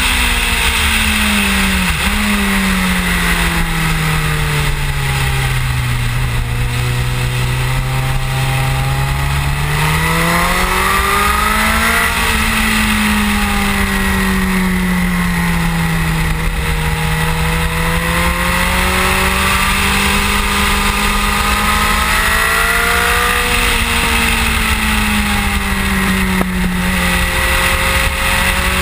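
Suzuki GSX-R1000 K7's inline-four engine at speed on track, its revs sliding down for several seconds early on, climbing again about ten seconds in, then dipping and rising more gently as the bike slows for and drives out of corners. Heavy wind rush over the fairing-mounted microphone runs under the engine throughout.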